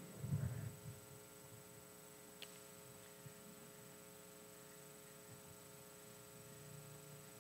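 Faint, steady electrical mains hum in the recording, with a brief faint stir of low sound in the first second and a couple of soft clicks.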